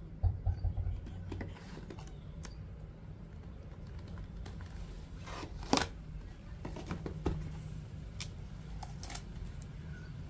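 A cardboard smartphone box being handled as the phone is lifted out of it: light scrapes and clicks, a few low bumps just after the start and a sharper click about halfway through.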